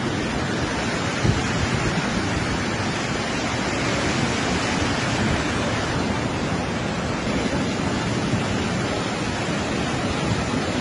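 Muddy flash-flood torrent rushing past: a steady, loud rush of water.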